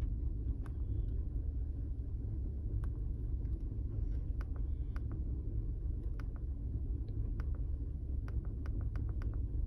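2005 Chevy Colorado's 3.5-litre inline-five running rough at idle: a steady low rumble with scattered, irregular ticks. The engine is misfiring, worst on cylinder 3.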